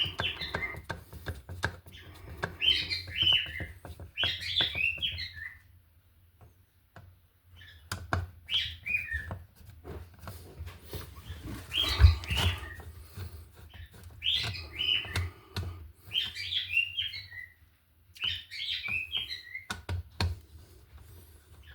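A small bird chirping in short repeated bursts of quick notes, with a pause of about a second and a half partway through. Scattered clicks of handling run through it, and there is one louder knock about halfway.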